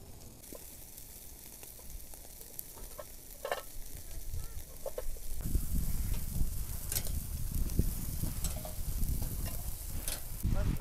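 Chicken pieces sizzling on a chain-hung grill grate over a fire, with metal tongs clicking and scraping on the grate as pieces are turned and lifted onto a pan. A low rumble joins about halfway through and is the loudest part.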